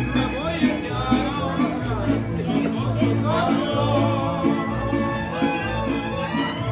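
Live mariachi band playing, with violins carrying the melody over a steady, regular bass rhythm.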